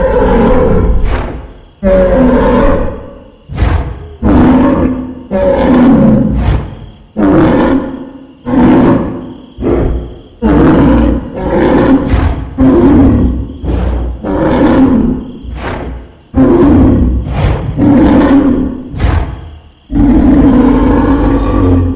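Reconstructed Triceratops call: a series of about fifteen short, dry, deep bellows, one every second or so. They are nasal in tone, like a furious rhinoceros.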